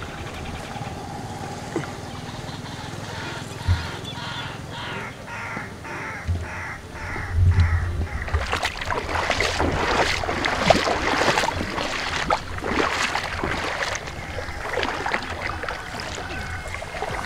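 Water splashing and sloshing from about halfway through, with gusts of wind on the microphone; earlier a crow caws repeatedly, about two calls a second.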